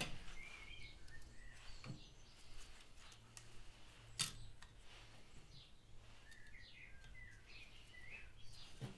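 Faint handling of a new car water pump and its solid gasket being held together: light metal clicks, with one sharper click about four seconds in, and faint high chirps.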